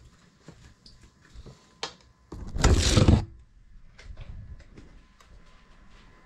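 Crashed FPV drone being knocked loose from where it lodged: a loud rushing scrape lasting about a second, about two and a half seconds in, amid small scattered clicks and knocks.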